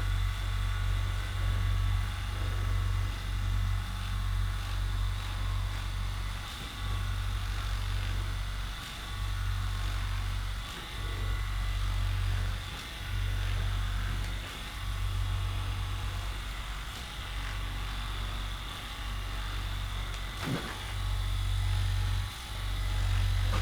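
A handheld electric massage device running with a low, steady buzz, pressed into the muscles along the rhomboid tendons in spells of a few seconds with short breaks between.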